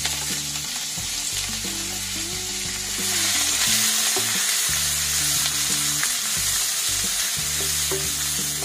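Chopped onions sizzling as they fry in hot oil in a nonstick pan while being stirred with a wooden spatula. The steady sizzle grows louder about three seconds in.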